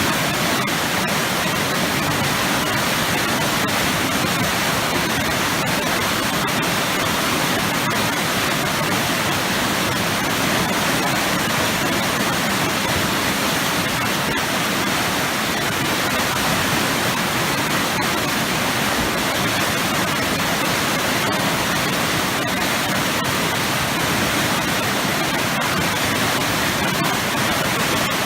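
Powerful waterfall pouring into heavy, churning water: a steady, loud rush without pauses.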